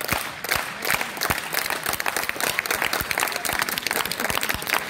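Small crowd applauding, the separate hand claps distinct and irregular.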